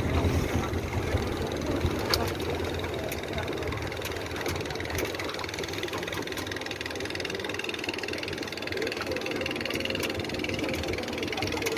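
River boat's motor running steadily with a low hum, easing and getting quieter after the first few seconds.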